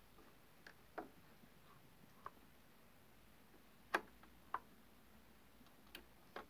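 Faint, scattered clicks from the front-panel controls of a Grundig PS 3500 turntable being pressed, the loudest about four seconds in as the record-size selector is pushed.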